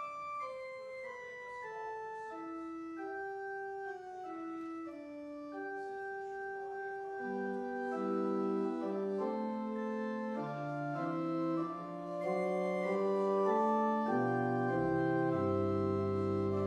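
Church organ playing a slow piece in held notes: a single descending melody line at first, then more voices joining in chords, with deep bass notes coming in near the end as it grows louder.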